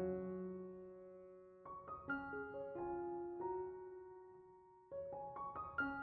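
Background piano music: slow phrases of sustained notes that ring out and fade, with new phrases beginning about two seconds in and again near five seconds.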